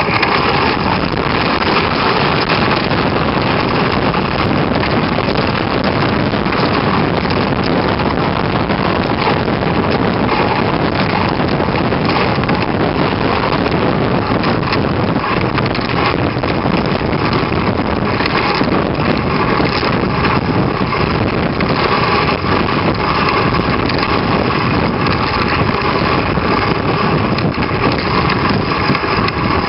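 Steady rushing hiss of a dog sled gliding over snow at speed, with wind buffeting the microphone.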